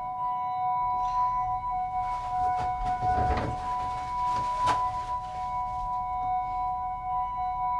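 Background film score: a steady ringing drone of two held tones, like a singing bowl, with a few soft handling noises and a light thump midway.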